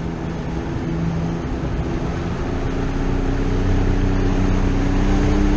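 Outboard motor running under way with wind and water noise; about halfway through its pitch slowly rises and it gets louder, as the boat picks up speed.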